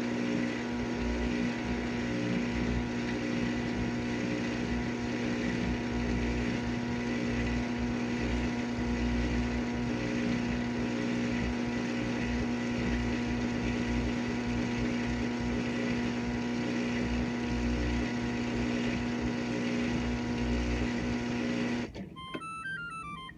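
GE dishwasher running with a steady motor hum, which cuts off suddenly near the end and is followed by a short run of electronic beeps: the signal that the cycle has finished.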